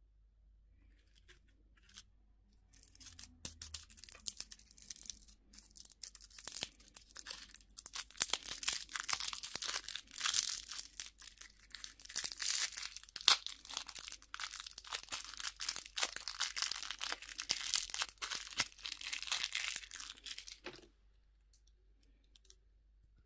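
Candy wrapper being torn open and crinkled by hand: a long run of dense crackling and tearing that starts a few seconds in and stops abruptly near the end.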